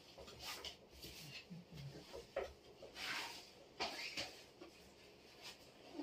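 A man's kimono cloth belt rustling and swishing as it is pulled and wound around the waist. It makes several faint brushes of fabric, the strongest about three seconds in.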